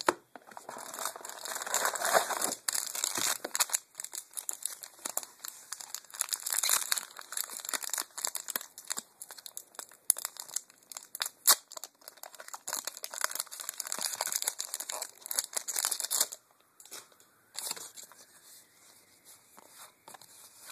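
Magic: The Gathering booster pack's foil wrapper being torn open and crinkled in the hands: a dense run of crackling and tearing that stops about sixteen seconds in. After that come fainter scattered clicks and slides of the cards being handled.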